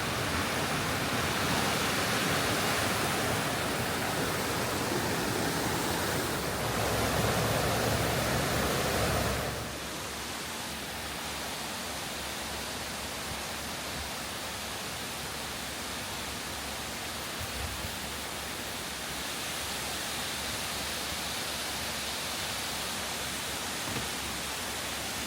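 Steady rush of falling or running water, an even hiss with no distinct events. It drops to a quieter, thinner hiss about a third of the way through, then holds steady.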